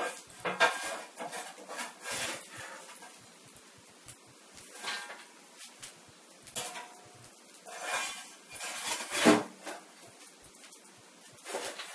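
Stiff plastic cut from a bleach bottle crackling and rustling as it is handled and flexed, in irregular bursts, the loudest about nine seconds in.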